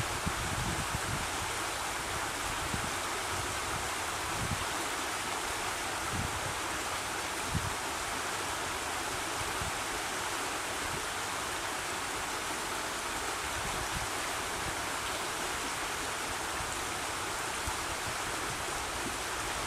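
River rapids: fast water rushing steadily through a shallow, broken stretch of the River Wye, a continuous even hiss. A few brief low thumps sound under it.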